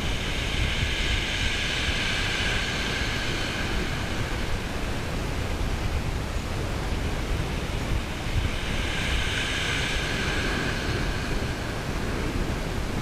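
Sea waves washing in, their hiss swelling twice, about a second in and again around nine seconds in, over a steady low rumble of wind on the microphone.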